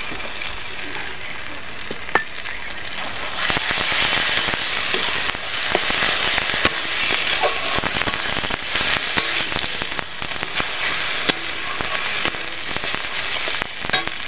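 Mustard oil sizzling in a metal karahi as a wet paste of ground helencha greens fries on top of onion, garlic, ginger and green chilli, and is stirred in with a metal spatula. The sizzle grows louder and brighter about three seconds in, with scattered clicks and scrapes from the stirring.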